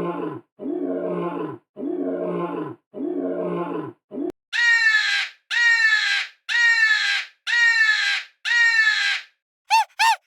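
Big-cat roar sound effects: a low roar repeated four times, then five higher roars that fall in pitch. Short high rising-and-falling calls begin near the end.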